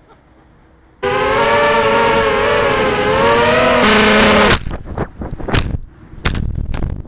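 FPV quadcopter's electric motors and propellers spinning up suddenly about a second in, a loud whine whose pitch wavers with the throttle and jumps louder before cutting off abruptly. The drone then hits the ground and tumbles, with several sharp knocks.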